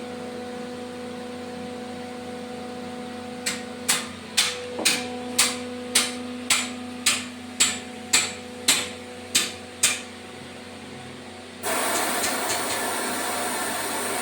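Steady hum of a running screw-compressor installation. About a dozen sharp, quickly fading bursts or knocks come at roughly two a second for several seconds. Near the end a loud, even hiss of air sets in.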